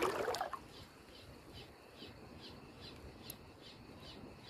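Ryobi HPX 1000 spinning reel being cranked on a lure retrieve, giving a soft high tick that repeats evenly about three times a second, after a brief noisy rustle at the very start.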